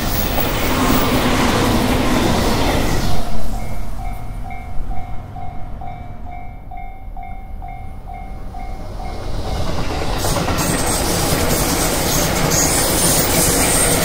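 An electric express train clatters over the level crossing, its wheel and rail noise ending about three seconds in with a few last thumps. The crossing's warning bell is then left ringing about twice a second. From about ten seconds in, a second electric train approaches and passes, and its rail noise drowns the bell.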